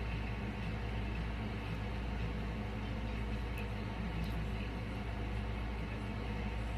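A steady low hum with a constant background hiss.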